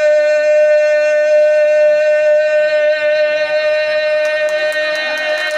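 A man's voice holding one long, steady high sung note at the end of a Pashto song line, with a few claps coming in near the end.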